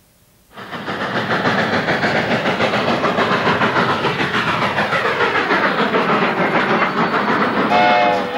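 Steam locomotive passing close by: a loud, even rush of noise from the engine and its running gear that starts abruptly about half a second in. Music comes in near the end.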